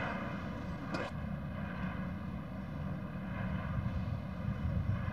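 Steady low rumble with a constant hum from an old film soundtrack, broken by a single sharp click about a second in where the film is spliced.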